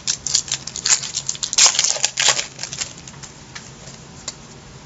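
Baseball trading cards being handled and shuffled through by hand: a quick run of rustles and card-on-card clicks over the first two and a half seconds, then a few soft ticks.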